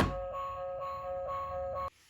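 Toy police car's electronic siren: a click, then a stepped electronic tone that switches pitch about four times a second and cuts off abruptly near the end.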